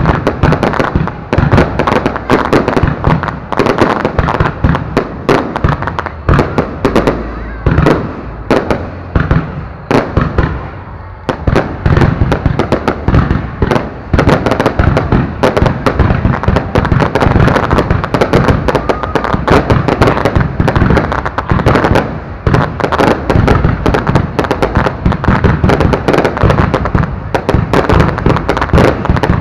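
Loud aerial fireworks display: a dense, unbroken run of bangs and crackling pops. It eases briefly about ten seconds in, then builds up again.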